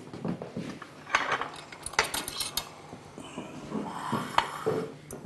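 Fork clinking against a shallow dish of egg: scattered strikes, with a quick run of taps about two seconds in.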